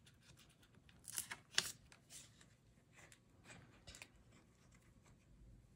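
Faint rustling of paper and a few light taps as a paper tag and small craft supplies are handled and set down on a cutting mat, the two sharpest about a second and a half in.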